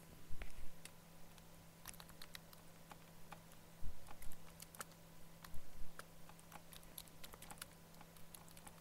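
Computer keyboard typing: irregular light key clicks with a few duller thumps, over a steady low electrical hum.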